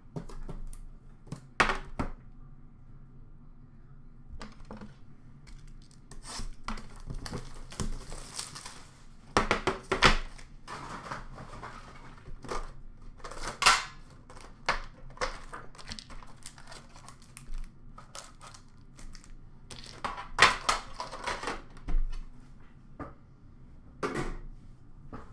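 Hockey card packs and a card tin being handled and opened on a counter: wrappers tearing and crinkling in short stretches, with irregular sharp knocks and clatter as boxes and the tin are picked up and set down.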